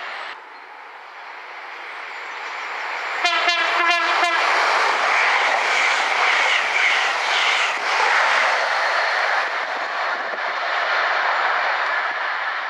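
A train horn gives a short blast lasting about a second, about three seconds in. Then the train passes at speed with a loud, steady rush of wheel and air noise.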